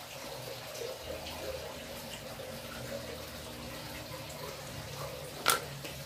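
Faint steady hiss and hum, with a single sharp knock about five and a half seconds in: a soldering gun being set down on a tile floor.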